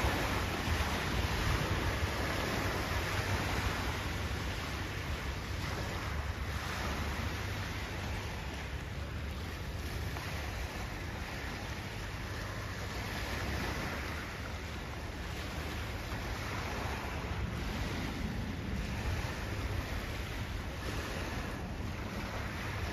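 Wind buffeting the microphone in a low rumble over the steady rush of river water, stronger at the start and again near the end.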